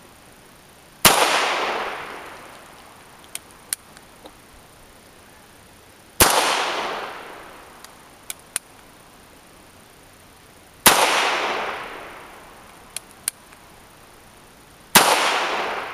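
Four single gunshots from a handgun, fired slowly about four to five seconds apart, each followed by an echo that dies away over a second or two. A couple of faint, light clicks come between the shots.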